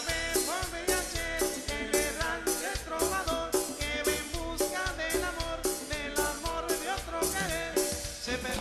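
Recorded Colombian tropical dance-band music from a medley (popurrí), with drums keeping a steady, fast beat under melodic instruments.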